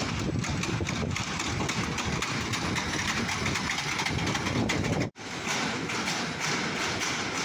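Freight train of flat wagons rolling past, a steady rumble with fine wheel-on-rail clicking. It cuts out for an instant about five seconds in, then resumes brighter with a more regular clatter of wheels over the rail joints.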